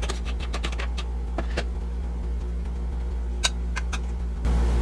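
Light clicks and soft patter of boiled rice being tipped from a plastic colander onto the layer in an aluminium pot and spread with a spoon: a quick run of clicks in the first second and a half, a few more near the end. A steady low hum lies under it.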